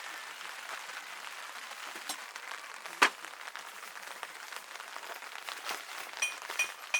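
Rain pattering steadily, with one sharp knock about three seconds in.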